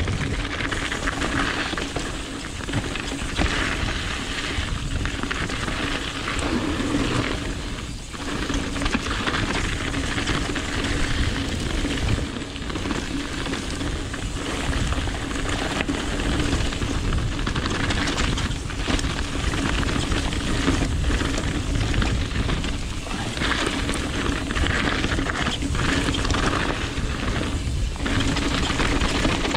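Mountain bike descending a rocky gravel trail: a continuous rush of tyres rolling over loose stones, with frequent knocks and rattles as the bike hits rocks and bumps.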